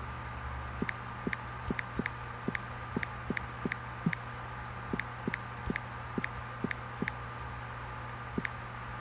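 Electric air pump humming steadily, with irregular light clicks over it, about three a second.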